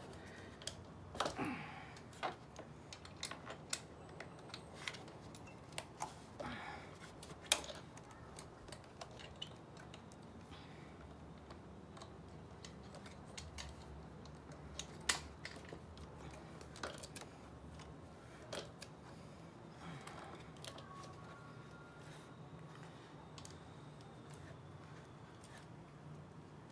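Irregular sharp metallic clicks and taps of a hand tool working the thread-locked engine-mount bolts of a 63cc/71cc scooter engine, coming more often in the first half. A faint steady low hum runs underneath.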